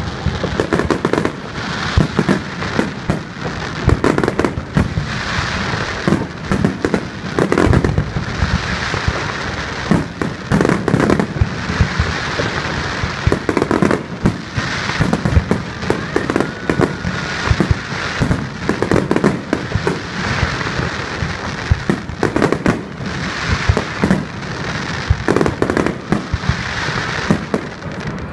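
Aerial fireworks display: shells bursting in a rapid, continuous barrage of sharp bangs, several a second, with a steady crackling hiss between them.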